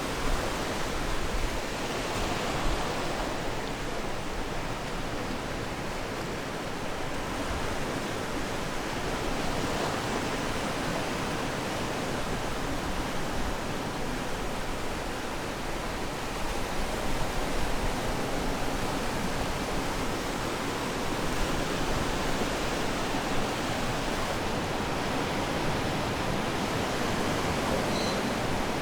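Ocean waves washing onto the shore, a continuous wash of surf noise that swells and eases gently.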